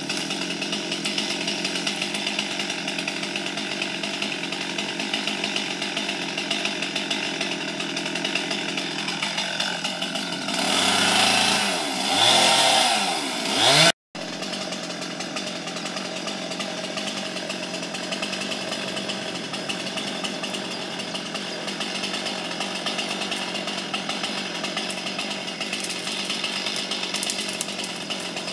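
Small petrol engine of a handheld cutting tool running steadily while clearing overgrown grass and shrubs. It revs up and down, louder, for a few seconds just before the middle. The sound cuts out for an instant and then carries on.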